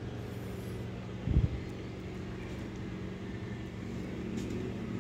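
Steady low background hum with a few faint steady tones in it, broken by a single dull low thump about a second and a half in.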